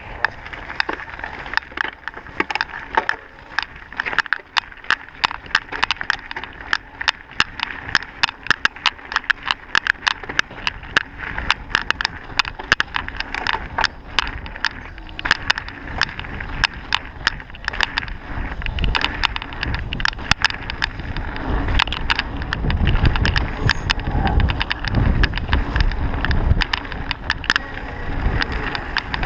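Mountain bike clattering and rattling over a rough dirt trail, with rapid, irregular sharp clicks throughout. A low wind rumble on the microphone grows louder in the second half as speed builds.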